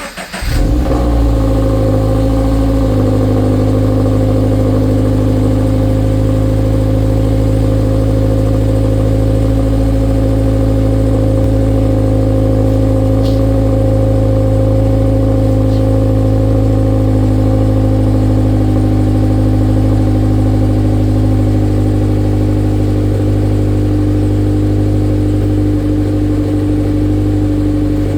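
Toyota GT86's 2.0-litre FA20 flat-four engine, breathing through an HKS Legamax Premium catback exhaust, firing up on a cold start at the very beginning and then holding a steady fast idle with an even exhaust note.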